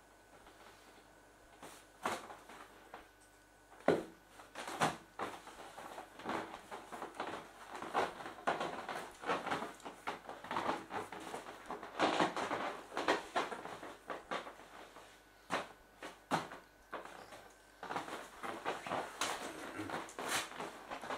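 Inflated vinyl clownfish pool toy being handled and moved about: irregular knocks and rubbing of the taut plastic, starting about two seconds in and going on busily after that.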